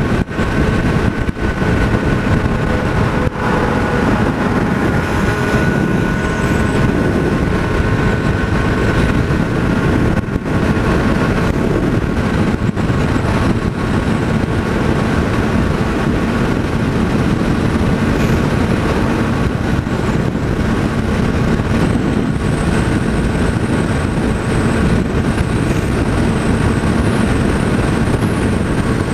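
Motorcycle engine running steadily at highway cruising speed, nearly buried under the loud rush of wind over the microphone.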